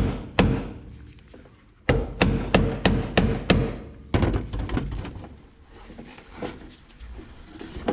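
Hammer blows on the steel of a Triumph TR3 body, each with a short metallic ring. There is a single blow just after the start, then a quick run of six about two seconds in, followed by lighter, fainter knocks.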